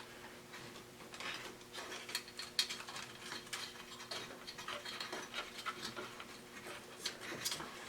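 Scattered light clicks and rubbing of wires being fed by hand through the back of a plastic headlight housing, irregular small ticks over a faint steady hum.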